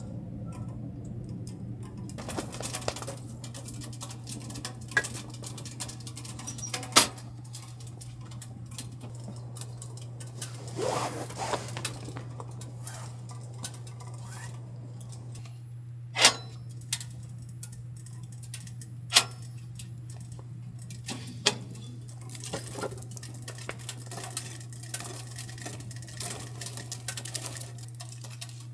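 Wood fire crackling in a wood-burning tent stove: scattered sharp pops and ticks, a few of them loud, over a steady low hum.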